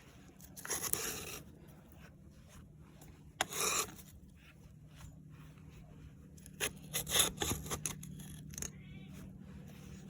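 Metal scraper scraping rust off the top of a piston in the Rumely 6A's open cylinder block, in short scrapes: one about a second in, another at about three and a half seconds, and a quicker run of scrapes between six and eight seconds.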